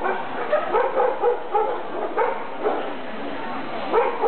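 A dog barking and yipping in short, irregular yelps, roughly two a second, over a steady background hubbub of the show hall.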